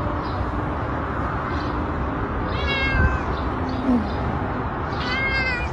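Domestic cat meowing twice, once about three seconds in and again near the end, each a short rising-then-falling call over steady background noise.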